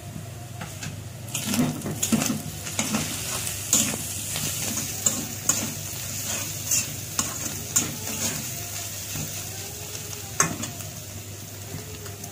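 Slotted metal spatula stirring and scraping shredded chicken and onions frying in oil in a metal wok, with a steady light sizzle under irregular scrapes and clicks of the spatula on the pan.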